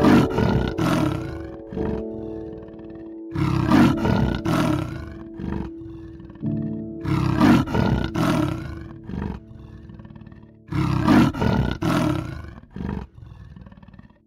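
Clouded leopard giving harsh growling calls in four bouts, each a quick run of several pulses, about every three and a half seconds. Background music plays under them.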